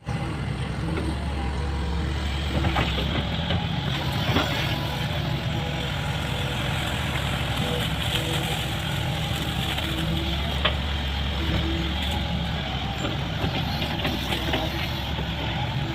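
Hydraulic excavator's diesel engine running steadily, with occasional sharp clanks.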